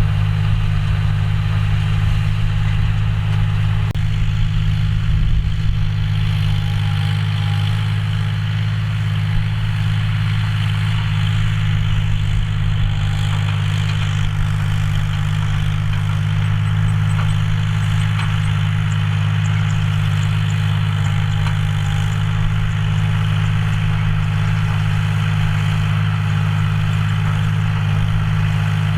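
John Deere 5045D tractor's three-cylinder diesel engine running at a steady speed, a constant low hum with no change in revs.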